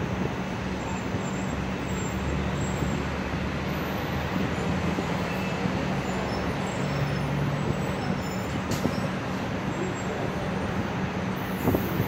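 Steady hum and rumble of a Long Island Rail Road M7 electric train standing at the platform, with a sharp click near the end.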